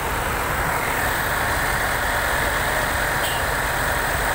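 Land Rover Range Rover L405's engine idling, heard from the open engine bay: a steady rushing noise over a low rumble, growing slightly louder about a second in.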